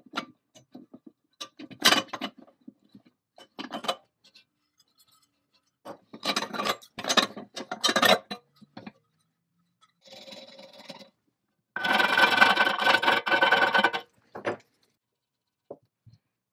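Metal scraping and clunking from the rusty parts of an antique Babcock milk fat tester being handled inside its cast-iron bowl, in several short bursts, with a longer, louder grating scrape about twelve seconds in that lasts two seconds.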